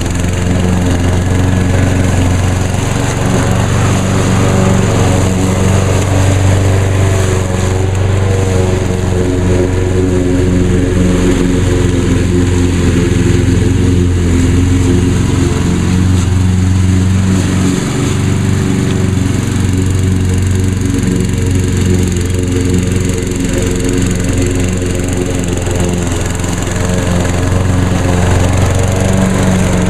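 2010 Craftsman EZ2Walk push mower's Briggs & Stratton engine running steadily while it cuts grass.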